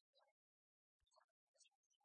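Near silence: only faint, choppy snatches of sound that cut in and out.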